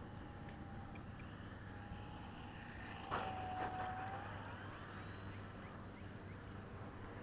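Faint whine of a Parkzone Spitfire RC plane's electric motor, holding one pitch and then rising a little after four seconds in as it throttles up from a touch-and-go. A short knock about three seconds in.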